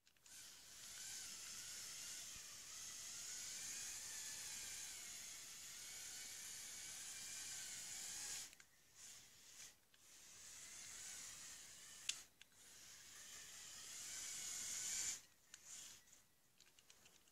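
Electric motors and gears of a remote-controlled LEGO Technic crane truck whining as it drives, a faint high whine that wavers in pitch. It stops about eight seconds in, comes back in short spurts, then runs again for about five seconds, with a sharp click partway through.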